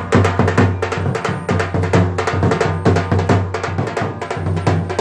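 Rajasthani folk percussion: a large two-headed dhol beating a steady rhythm, with quick, sharp clicking strokes laid over it.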